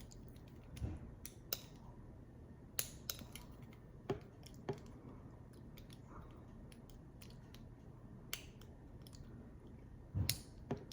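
Scattered small clicks and taps of a circlip remover working at the circlip on a disassembled padlock, a dozen or so at irregular intervals with a short cluster near the end.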